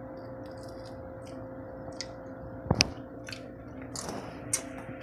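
A few sharp clicks and crackles from cooked shell-on seafood being handled and eaten by hand, the loudest about halfway through, over a steady low hum.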